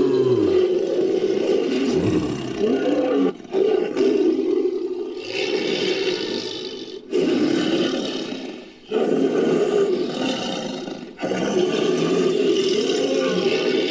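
Designed creature roars, layered from big-cat roar recordings and a human voice: about five long, loud roars in a row, each fading out before the next one starts.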